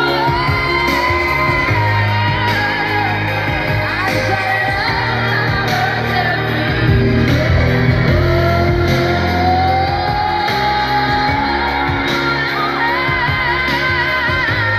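Live pop music: a woman sings long held notes with vibrato over a steady bass and band backing.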